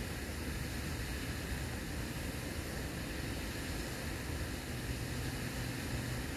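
Steady outdoor background noise: an even hiss with a low rumble, joined by a faint low hum about five seconds in.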